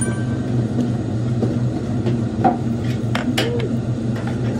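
Steady low hum with scattered sharp clicks and clinks.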